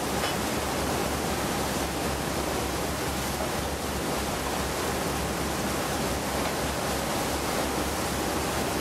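Steady rushing water noise, even and unchanging.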